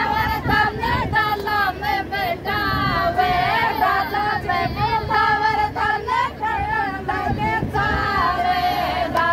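Women singing a Rajasthani sithna, a Shekhawati wedding folk song of teasing insults, in one continuous melody.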